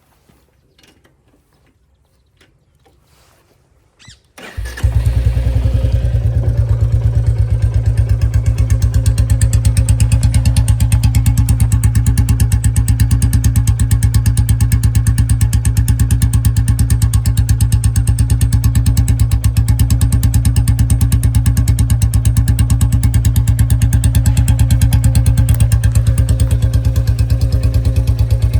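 2024 Royal Enfield Bullet 350's J-series single-cylinder engine, fitted with a C-bend pipe and short-bottle silencer, starting about four seconds in and then idling loudly with an even, rapid thump.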